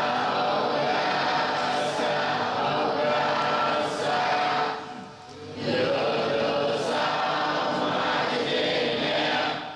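Many voices chanting a Buddhist recitation together in unison, steady and sustained. The chant breaks off briefly about five seconds in and again near the end, as the group pauses for breath.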